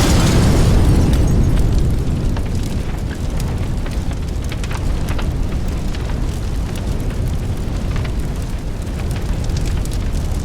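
A sudden boom, then a steady roaring rumble strewn with crackles and pops, like an explosion or fire sound effect, with no music in it.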